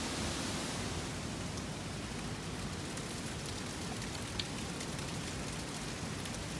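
Steady rush of water from river rapids. From about a second in it gives way to a thin stream of water falling down a rock face and splashing onto stones, with small drips ticking.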